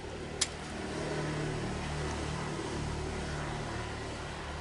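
A motor vehicle's engine running with a steady low hum. It grows louder about a second in and slowly eases off toward the end, as a vehicle going by would. A single sharp click comes just before the hum swells.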